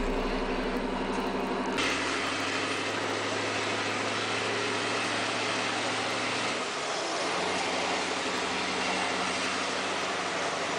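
Scania R560's straight-piped V8 diesel running steadily under way, heard from inside the cab along with road noise. About seven seconds in the engine note briefly dips and changes pitch.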